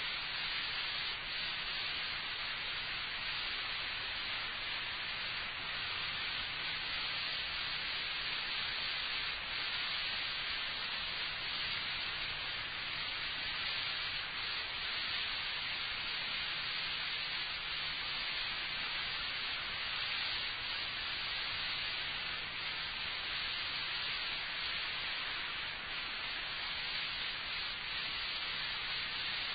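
Steady hiss with a faint low hum beneath it: the noise floor of an old tape recording, with no speech.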